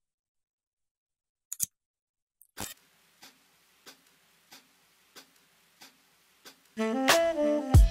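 Sharp clicks of a plastic mouse shell being handled and set down on a digital scale, followed by faint ticking about every two-thirds of a second. Near the end a short melodic music passage starts and is the loudest sound.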